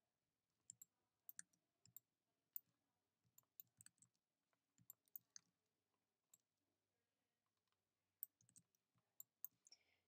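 Faint, irregular clicking of a computer mouse and keyboard: a couple of dozen short, scattered clicks.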